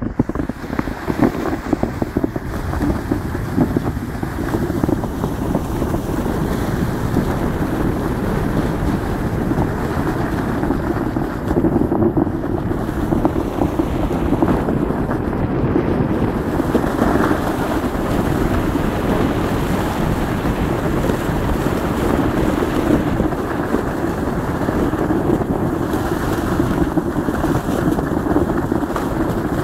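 A sled sliding down a packed-snow track: a continuous, steady scraping rush of the sled over the snow, mixed with wind blowing on the phone's microphone.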